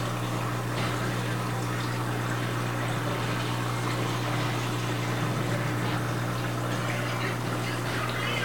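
Reef aquarium's water circulation running: steady trickling, pouring water over a steady low pump hum.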